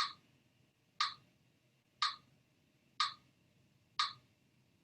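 Steady ticking, one short tick each second, five in all, at an even pace like a timekeeper counting seconds.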